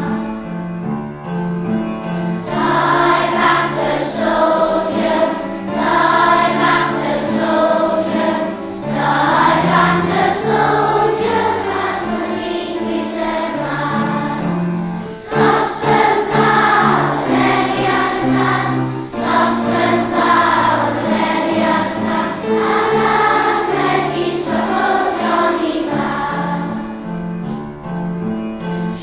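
A choir singing a song with musical accompaniment, in sustained notes over a steady bass line.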